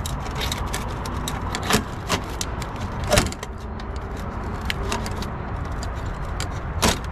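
Plastic and metal parts of a large printer clicking, rattling and knocking as a stuck assembly is tugged at and worked by hand. There are louder knocks about two, three and seven seconds in, over a steady low rumble.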